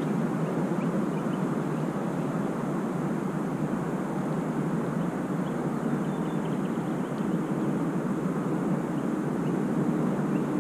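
Steady rushing wind noise on the microphone, even and unbroken, with a few faint ticks in the background.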